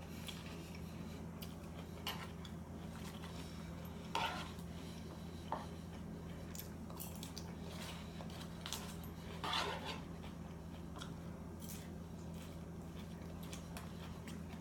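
Quiet eating sounds: a few soft clicks and scrapes of a fork against a salad dish, spaced several seconds apart, over a steady low hum.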